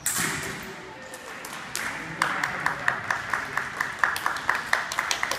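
A sudden burst of voices and cheering, then hands clapping close by, steady at about five claps a second.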